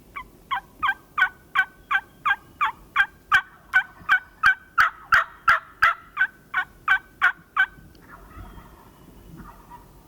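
A long run of turkey yelps: about twenty evenly spaced notes at roughly three a second, each dropping in pitch, stopping a little before the end.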